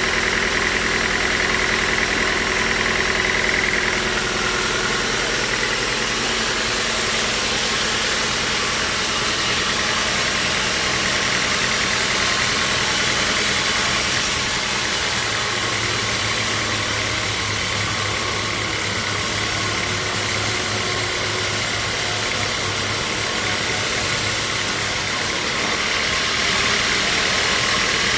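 Band sawmill machinery running steadily, an engine-like drone with a high whine in the first few seconds. About fourteen seconds in the sound turns hissier and a low hum joins it for about ten seconds.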